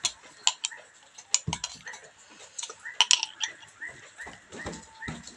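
A metal spoon clinking against a glass jar of pickled chillies and a plate: a scatter of sharp clinks. Behind it is a run of short, high animal calls, about three a second.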